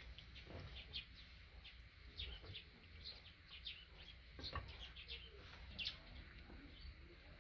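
Faint, frequent chirps of small birds, with a few light clinks of a metal pot being handled.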